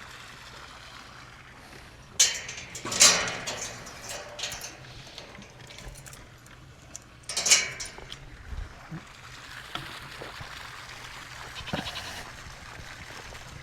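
Bleating from the farm's goats and sheep: two loud calls, the first about two to three seconds in and the second about seven seconds in, with a few fainter sounds between them.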